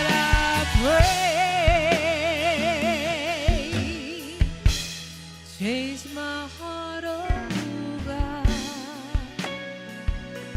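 Gospel worship band playing with keyboard and drum kit while a singer holds a long note with wide vibrato, then sings a short phrase that slides up in pitch about halfway through. Regular drum hits run under it.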